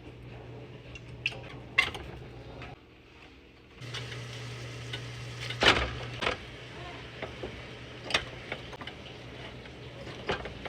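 Kitchen clatter: scattered knocks and clinks of cookware and utensils being handled, over a steady low hum, with the loudest knock about halfway through.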